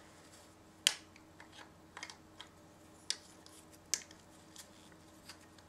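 Small plastic clips and fittings of a camera strap mount being handled: a scattered series of short, sharp clicks, about eight in all, with soft rubbing between them.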